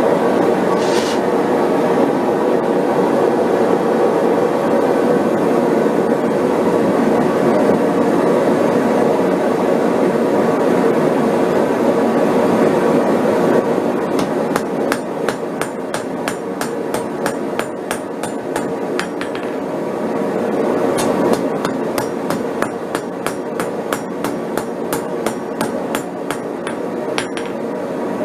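Propane forge burner running with a steady rushing noise; about halfway through, hammer blows on hot steel over an anvil start, a quick, even series of about three strikes a second, as the billet is struck to set a forge weld.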